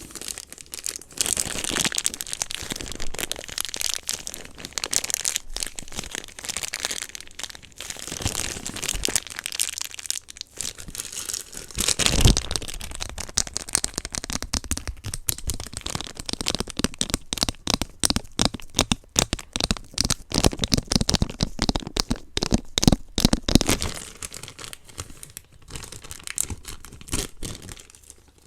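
Plastic packaging being crinkled, crackled and torn while a blind box is handled and opened. The crackling is dense and irregular, with a sharper crack about twelve seconds in.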